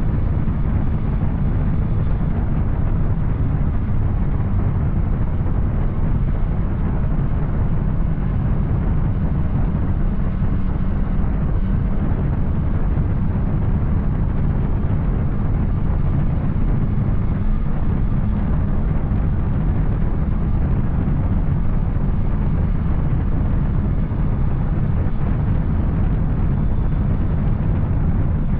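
Yamaha Tracer 900's three-cylinder engine through an Arrow aftermarket exhaust, running steadily at a constant speed while the motorcycle rides along.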